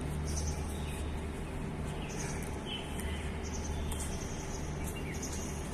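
Outdoor background: a steady low hum with scattered short, high bird chirps. No blade strikes.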